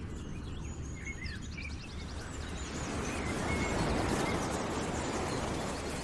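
Nature ambience under the slideshow: a steady rushing noise with birds chirping, including a quick trill, during the first half, the rushing swelling a little in the middle.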